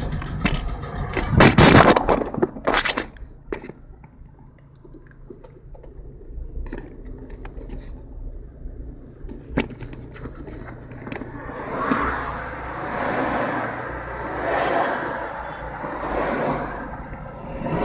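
Inside a moving car: a steady low rumble of engine and road noise, with a loud spell of scraping and knocking in the first three seconds and repeated swelling rushes of noise in the last few seconds.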